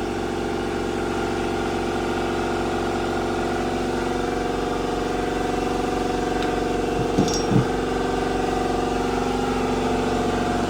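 A machine running at a steady speed: a constant droning hum with many even overtones, with no change in pitch or level.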